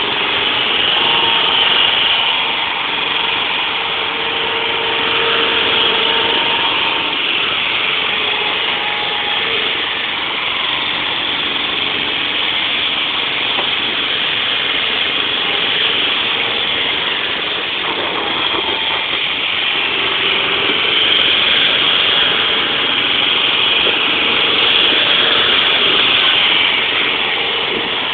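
Forklift engine running steadily under load as the machine drives and handles a pallet, its level rising and falling a little.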